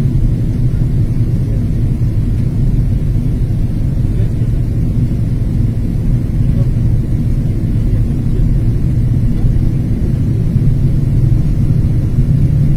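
Steady low drone inside an airliner cabin in flight: the engines and rushing air heard as one unbroken rumble.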